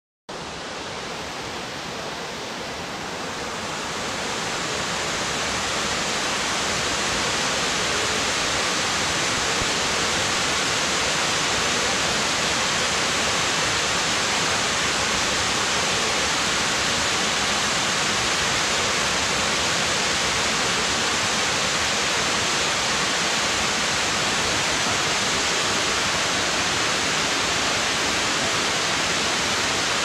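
Tiered waterfall spilling over rock ledges into a rocky stream: a steady rush of falling water that swells up over the first several seconds and then holds even.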